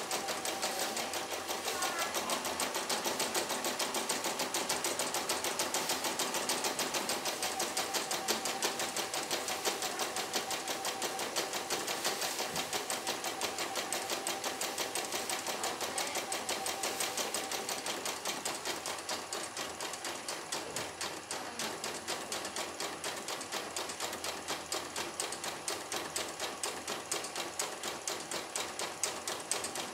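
CNY E900 portable computerized embroidery machine stitching a design, its needle going up and down in a rapid, even clatter. It gets a little quieter after about the first two-thirds.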